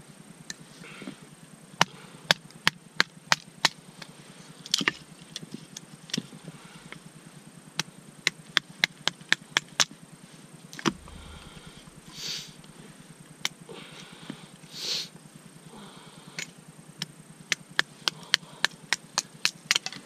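Hatchet splitting dry, knotty wood into kindling: runs of sharp wooden knocks, about two a second, broken by short pauses with a little rustling as the pieces are handled.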